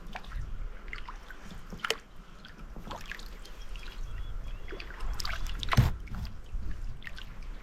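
Water dripping and splashing from a kayak paddle as it strokes the lake, a scatter of small drips and trickles over a low rumble, with one louder knock about three-quarters of the way through.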